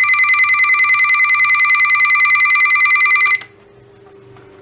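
Emerson Research CKW2000 weather alert radio's siren going off in a test: a loud electronic trill of several steady tones, pulsing rapidly. It cuts off suddenly a little over three seconds in, leaving a faint hum and a couple of small clicks.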